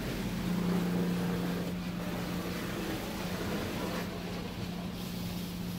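Automatic car wash machinery running, heard from inside the vehicle's cabin: a steady motor hum over the hiss of water spraying and a cloth brush washing against the body.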